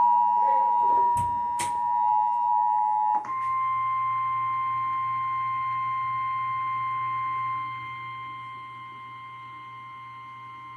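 Emergency Alert System attention signal: the two-tone alert sounds for about three seconds, then switches to a single steady weather-radio warning tone. That tone drops in level partway through and cuts off just before the spoken warning.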